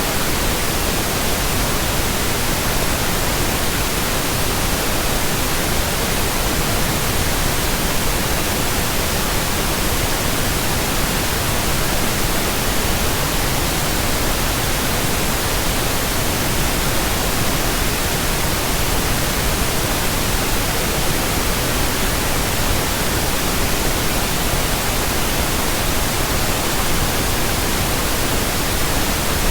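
Steady pink noise: an even, unbroken hiss spread across all pitches, with no change in level.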